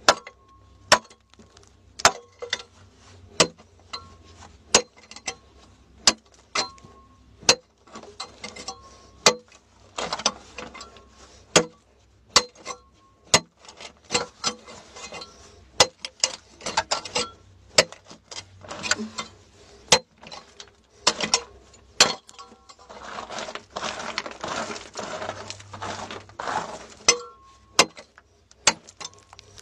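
A metal digging tool striking hard, stony soil again and again, about once a second, each blow a sharp clink, some with a short metallic ring. Near the end there are a few seconds of scraping and loose soil being worked.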